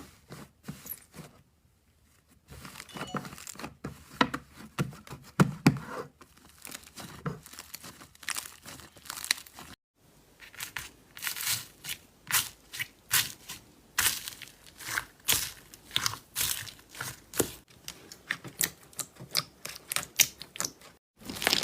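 Slime being pressed and stretched by hand close to the microphone, giving dense crackling and popping clicks, with short breaks about 2 and 10 seconds in.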